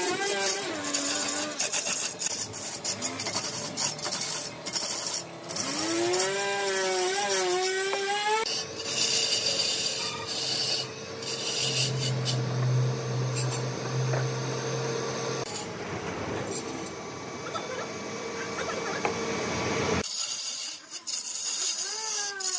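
Large wooden log turning on a lathe while a hand-held cutting tool shaves it, a continuous rough scraping over the hum of the lathe's motor. A wavering pitched tone comes and goes twice in the first eight seconds.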